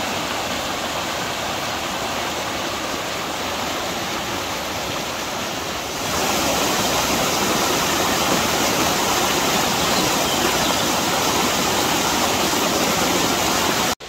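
River water rushing and spilling over rocks in small cascades and rapids, a steady roar of water that grows louder about six seconds in.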